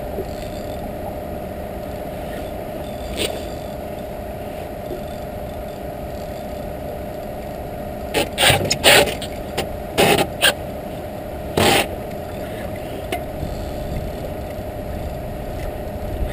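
Quantum Cabo 40 spinning reel working against a hooked catfish on a bent rod: a handful of short rasping bursts past the middle, as the drag gives line or the reel is cranked, over a steady hum.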